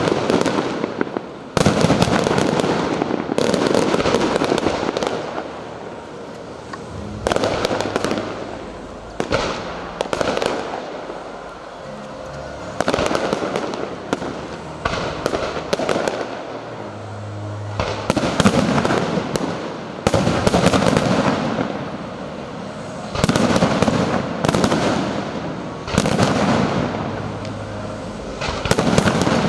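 Aerial fireworks display: a run of sharp bangs every second or two, each trailing off, with a quieter spell of fewer bursts in the middle.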